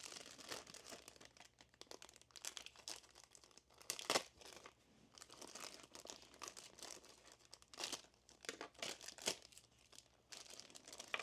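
Plastic packaging crinkling and rustling as small figure parts are handled, with a few sharper crackles about four, eight and nine seconds in.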